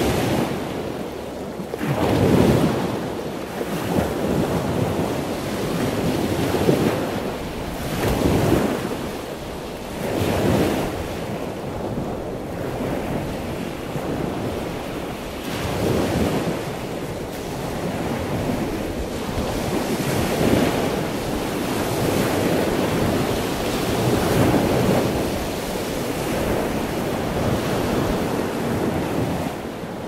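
Waves washing in: a steady rush of water that swells and eases every few seconds.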